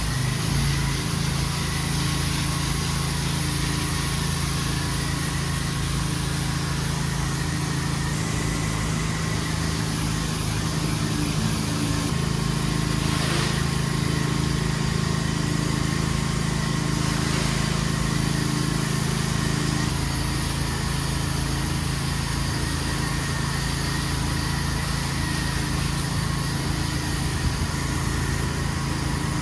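Pressure washer's petrol engine running steadily under load, with the hiss of its water spray over it. The engine's pitch shifts slightly a few times.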